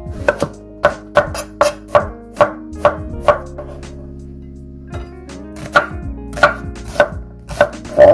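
Kitchen knife chopping vegetables on a wooden cutting board: quick sharp knocks, about three a second, in two runs separated by a pause of about two seconds.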